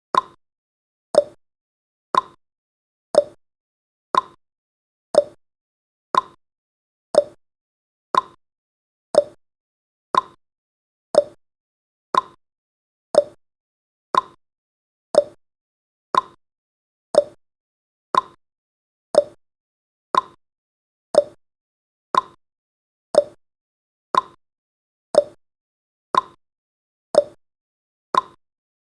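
Countdown timer sound effect: a short tick once every second, steady and evenly spaced.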